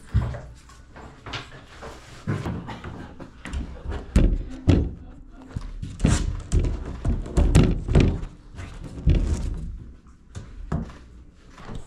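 Labrador puppies scrambling and tumbling on a hard floor close to the microphone: irregular thumps and knocks from their bodies and paws, with several loud bumps in the middle of the stretch.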